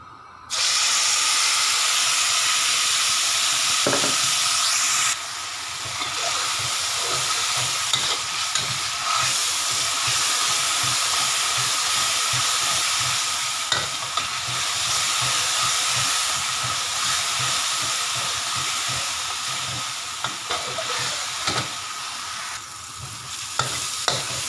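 Blended chili paste dropping into hot oil in a wok, setting off a sudden loud sizzle that eases slightly after about five seconds and carries on as the paste fries. A spatula stirs and scrapes it around the pan throughout, with small clicks against the wok, as the chili is sautéed until it browns.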